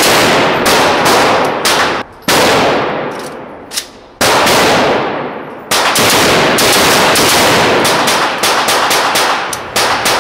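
Rifle fired repeatedly through a muzzle brake: a string of loud shots, each with a long echoing tail. It pauses briefly about two and four seconds in, then picks up again as a faster string from about six seconds.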